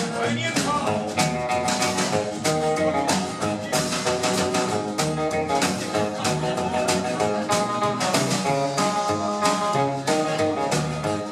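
Live country band playing an instrumental passage: guitar with held string notes over a steady drum beat.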